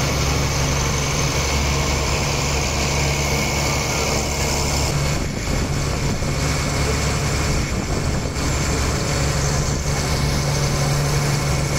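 Fishing boat's engine running steadily, an even drone that holds one pitch throughout.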